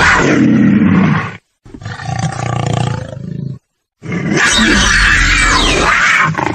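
Three dinosaur roar sound effects in a row, separated by short silences: a loud roar, a quieter, lower growl, then a long loud roar near the end.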